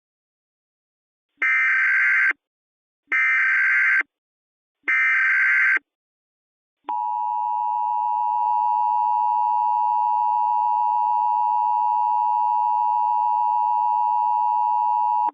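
Emergency Alert System alert tones: three one-second bursts of SAME header data, a harsh digital chirping, come about a second apart. About seven seconds in, the EAS attention signal starts, a steady two-tone buzz that comes just before the spoken shelter-in-place warning.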